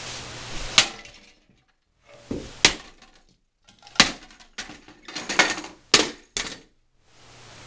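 Baseball bat smashing a cheap plastic Soundesign turntable: about seven sharp cracking blows, with plastic breaking and the platter knocked loose and clattering.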